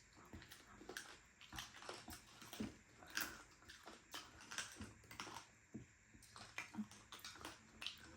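Quiet eating sounds: soft chewing with small scattered clicks and taps, a little louder about three seconds in.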